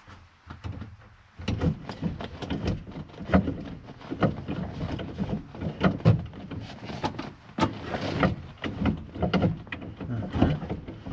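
Column-mounted gear shift lever of a 1964 Moskvich-403 being worked through its gear positions, with a busy irregular run of clicks and clunks from the lever and shift linkage starting about a second and a half in.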